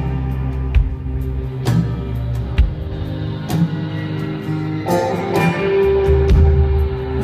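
Amplified acoustic guitar played live in an instrumental passage: picked notes ringing over sustained low tones, with a new plucked attack every second or so.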